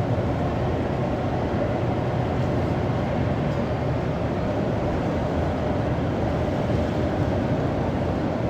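A steady, even drone of noise with no separate events, heaviest in the low and middle range: a sound-effect atmosphere track.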